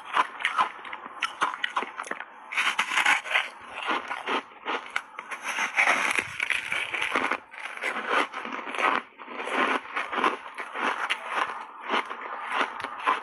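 Close-up crunching and chewing of matcha-powdered crunchy foam reshaped ice: a steady crackle of ice breaking between the teeth, with louder bites about three and six seconds in.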